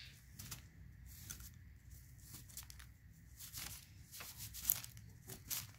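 Wooden pick scraping and prying at a dry clay block, with irregular small scratches and crumbling clicks as bits of clay break off; the loudest scrape comes near the end.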